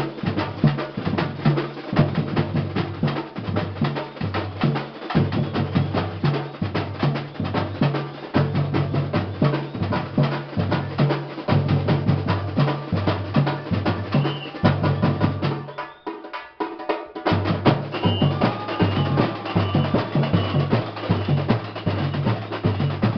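Batucada-style drum group playing a fast, dense rhythm: pitched bass drums pound under snares and other percussion. About sixteen seconds in, the bass drums stop for a second or so, then the full group comes back in.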